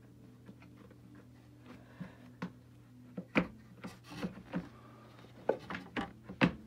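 Irregular clicks and knocks of vacuum cleaner parts being handled and fitted by hand, starting about two seconds in and coming more often toward the end, over a low steady hum.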